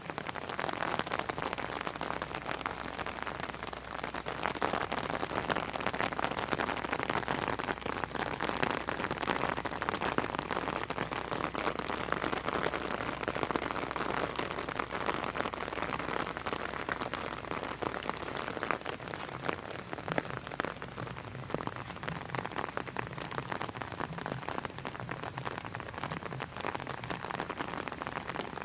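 Steady rain falling and pattering on foliage and the ground, a dense even hiss full of fine drop taps.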